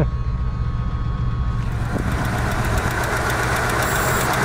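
A 1977 Lincoln Continental's V8 idling steadily on one of its first runs after sitting for about 35 years, its idle tightening up while a few vacuum leaks remain. About a second and a half in, the sound changes from inside the cabin to out at the open hood, where it is brighter.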